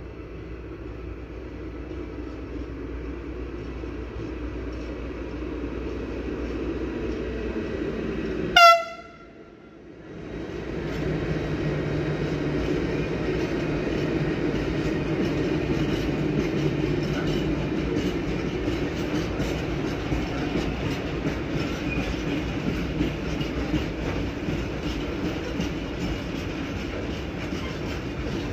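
A train approaching and growing louder, then one short, sharp horn blast about eight and a half seconds in. After the sound drops away for about a second, the train passes with a steady rumble and wheel clatter.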